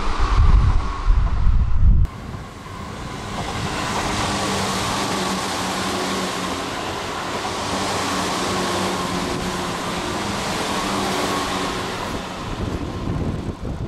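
Wind buffeting the microphone for the first two seconds. Then, after an abrupt cut, a Tobu 8000-series electric train passes close at speed: a steady rush of wheels on rail with a steady hum under it, easing off near the end as the train draws away.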